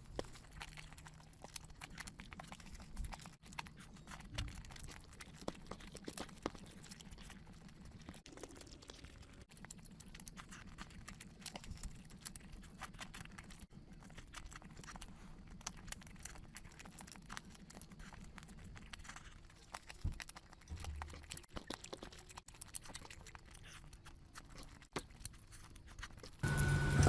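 Close-miked eating sounds: chewing, with a steady stream of small wet clicks and smacks. Near the end a louder, steady sound cuts in abruptly.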